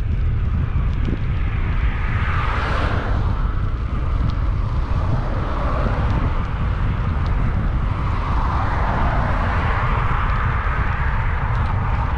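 Wind buffeting the microphone as a bicycle rides along, a steady heavy rumble, with cars passing on the road alongside: one swells and fades about three seconds in, and a longer pass builds up in the second half.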